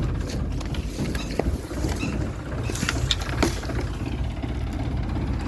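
Farm machinery's diesel engine running steadily with a low rumble, with a few short knocks or clicks about one and a half and three seconds in.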